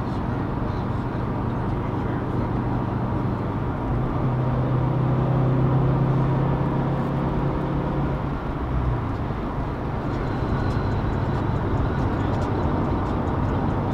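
Car engine droning steadily with tyre and road noise, heard from inside a car cruising at highway speed. The engine note grows stronger about four seconds in and eases back a few seconds later.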